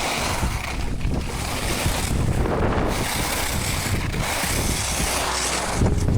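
Wind buffeting the microphone during a ski run, with skis hissing and scraping over snow in surges that rise and fall about once a second.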